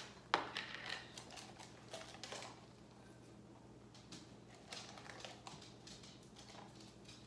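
Light, scattered clicks and taps of a spoon working grated Parmesan out of a plastic tub over a stainless steel mixing bowl, with one sharper click just after the start.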